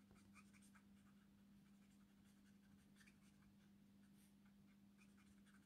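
Faint scratching of a Copic marker nib stroking across paper, many short strokes in quick succession, over a faint steady hum.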